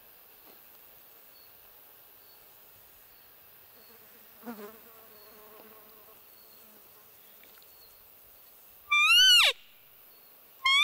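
Roe deer lure call blown near the end: a short, loud bleat that rises briefly and then slides steeply down in pitch, with a second one just starting as it ends. It imitates a roe's call to draw in a rutting buck. A faint insect buzz runs underneath.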